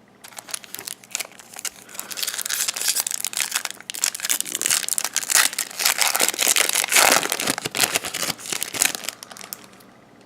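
Crinkly foil wrapper of a baseball card pack being torn open and crumpled in the hands, a dense crackling that builds to its loudest in the second half and dies away near the end.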